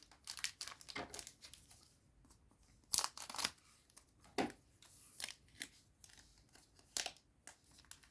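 A foil booster-pack wrapper being torn open and crinkled by hand, in short irregular crackles, the loudest about three seconds in.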